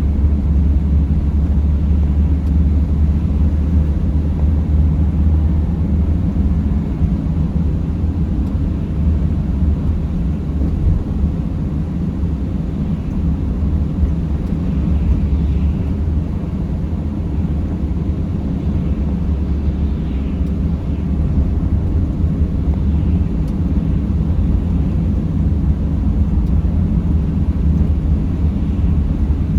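Steady low rumble of a Mercedes Sprinter van driving: engine and tyre noise carried through the vehicle, unbroken.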